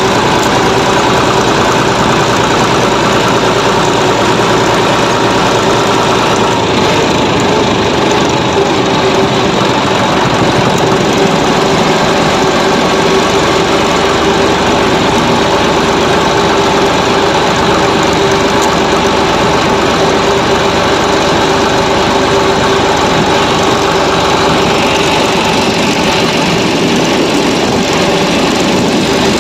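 John Deere 5405 tractor's diesel engine running steadily while driving along the road, heard close up from the driver's seat.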